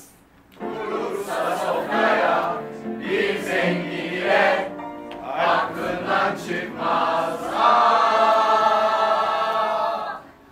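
A large group of men and women singing a song together in short phrases, ending on one long held note near the end.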